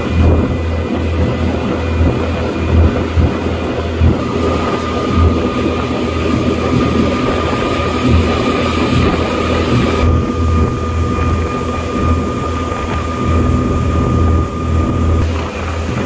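Motorboat under way: its engine running steadily over a loud rush of wind and water, with a steady whine from about four seconds in until shortly before the end.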